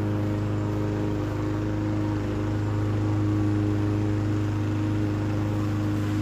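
Petrol lawn mower engine running steadily at an even pitch.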